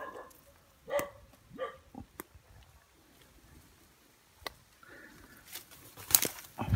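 Short yelping animal calls, a few times, with a sharp knock and a dull thud near the end.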